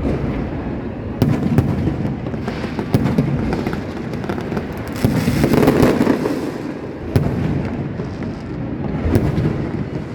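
New Year fireworks going off: a continuous rumble of booms with sharp cracks every second or two, and a louder swell about halfway through.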